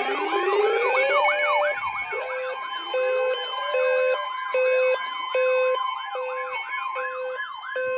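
Several electronic sirens sounding together: fast, repeating yelping sweeps and a two-note hi-lo wail, over a steady single tone that cuts off at the very end. The steady tone is the weather radio's warning alarm tone, which comes just before a severe thunderstorm warning is read.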